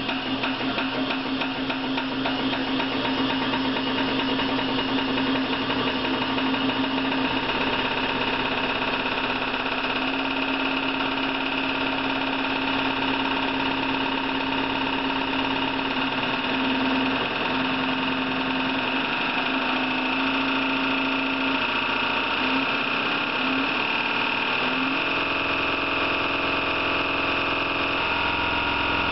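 Servo-hydraulic test machine running with a steady hum, shaking a thin strip clamped in its hydraulic wedge grip. A low steady tone falters and stops about 25 seconds in, as the strip comes to rest while the machine's hum carries on.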